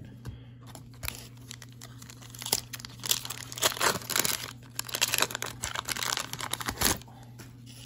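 Wrapper of a 1995 Upper Deck SP Motorsports trading-card pack being torn open and crinkled by hand, in irregular crackly bursts that start about a second in and stop about seven seconds in.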